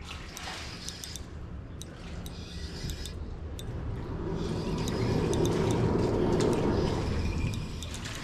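Spinning reel being cranked steadily to reel in a hooked crappie, its gears whirring with small clicks. It gets louder for a few seconds about midway.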